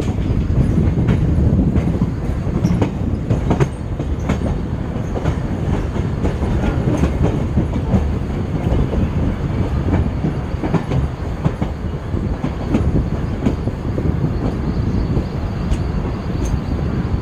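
Running noise heard aboard an electric multiple unit local train: a steady low rumble of wheels on track with frequent clicks and clacks over the rail joints.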